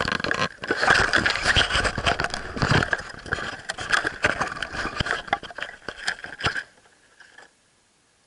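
Handling noise of a small camera being pushed into place among grapevine leaves and stems: dense scraping, rustling and knocks against the microphone that stop about six and a half seconds in, with a last faint scrape just after.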